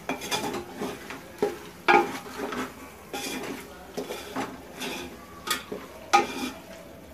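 A spoon stirring fried meat pieces and garlic paste around a steel pot, scraping and knocking against the pot in irregular strokes, with the sharpest knocks about two seconds in and about six seconds in. Hot oil sizzles faintly under the stirring.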